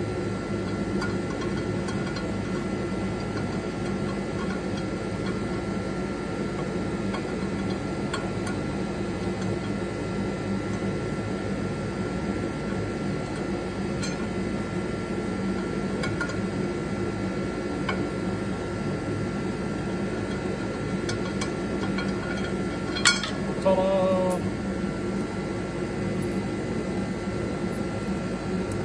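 Steady background hum throughout, with a few light metallic clicks from hand tools on the transmission's bell-housing bolts under the car. About 23 seconds in, a sharp metallic clink is followed by a brief pitched ring.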